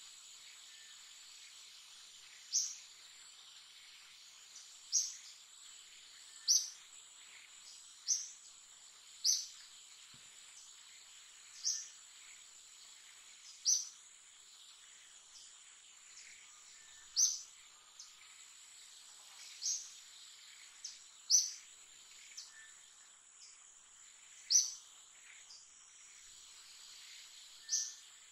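Steady high-pitched insect drone, such as cicadas or crickets, with a short high chirp repeated about a dozen times at irregular gaps of two to three seconds, typical of a bird calling.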